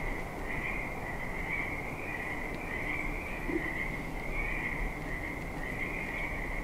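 A chorus of frogs calling, a continuous high trilling that swells and eases every second or so.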